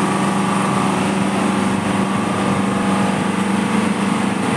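A small engine or motor running steadily at a constant speed, a continuous even hum.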